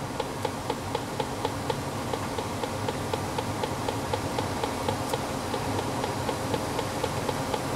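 Electronic combustible-gas leak detector ticking at an even rate, about five ticks a second, as its probe is swept around a furnace gas valve. The rate does not speed up, which on such a detector means no gas is being picked up. A low steady hum runs underneath.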